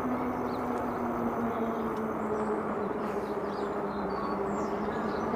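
ENGWE X26 e-bike under way: the hub motor gives a steady hum over the rushing of tyres and air while riding.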